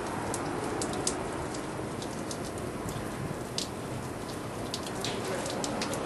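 Steady background hiss with scattered sharp ticks and crackles, about a dozen spread irregularly through it.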